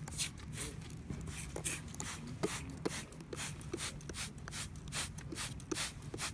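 Rapid rhythmic scrubbing strokes, about three a second, on a BMX bike's rear wheel rim as the old paint and brake dust are worked off.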